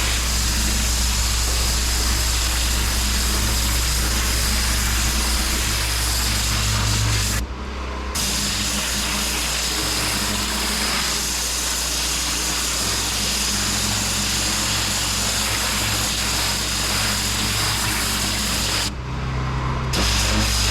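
A pressure washer's engine running steadily while its high-pressure jet hisses against block paving. The spray cuts out briefly twice, about eight seconds in and again near the end, while the engine keeps running.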